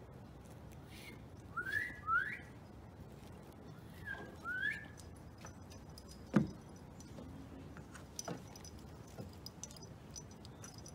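Two pairs of short rising whistled notes, then a single sharp thump about six seconds in, over faint background hiss.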